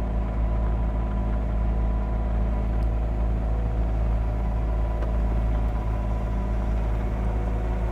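Caterpillar 259D3 skid steer's diesel engine running steadily under load with a low rumble while it pushes dirt, heard from the operator's seat.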